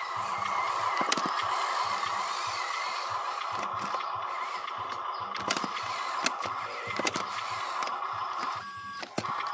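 Radio-controlled dump truck's electric motor and gearbox whining steadily as it drives over dirt, with scattered sharp clicks. The whine stops for a moment about nine seconds in, then starts again.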